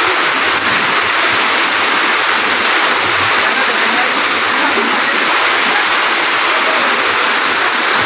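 Small waterfall cascading over rock, a steady loud rush of water.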